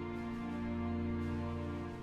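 Background music: sustained, soft instrumental chords.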